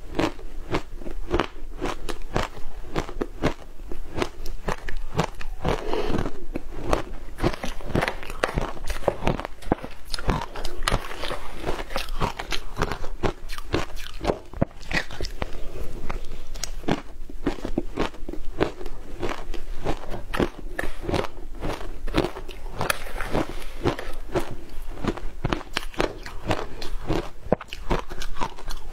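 Crushed matcha ice being bitten and chewed, a steady, dense run of rapid crunches.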